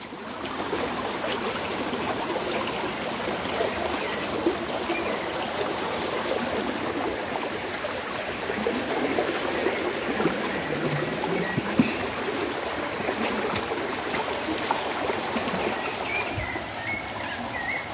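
Steady rush of floodwater flowing through a swollen creek.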